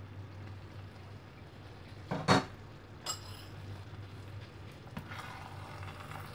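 Glass saucepan lid being put down: a loud clunk about two seconds in and a ringing clink a second later. A spoon then stirs and scrapes in the metal saucepan of simmering rice and coconut milk, over a steady low hum.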